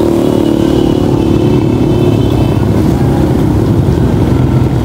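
Street traffic: motorcycle and small-vehicle engines running as they pass close by, over a continuous low rumble.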